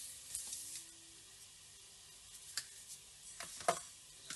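Faint handling of a cardboard box and its packaging: a short rustle near the start, a single soft tap about two and a half seconds in, then a few scrapes ending in a sharper knock a little past three and a half seconds.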